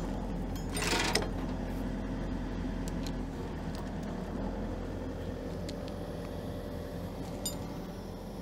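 John Deere 135G excavator's diesel engine running steadily, with a short noisy burst about a second in.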